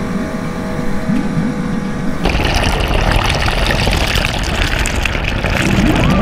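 Bathtub water rushing and churning around a camera held underwater. About two seconds in it turns suddenly louder and fuller, and stays that way.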